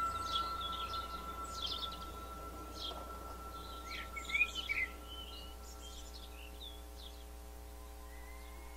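Closing bars of a lyrical dance track: a held tone slowly dying away under recorded birdsong chirps, which stop about six seconds in.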